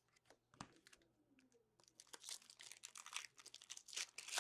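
A few light clicks and a soft knock, then about two seconds of dense crinkling and tearing of a foil trading-card pack wrapper as it is handled and opened.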